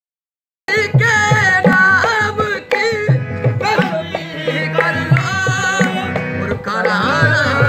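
Qawwali music: a male voice singing over harmonium and dholak drum strokes. It starts abruptly under a second in, after a moment of silence.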